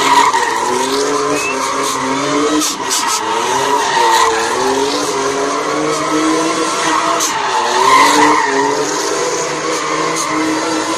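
A BMW's engine revving up and down in waves while its tyres screech without a break as it spins donuts.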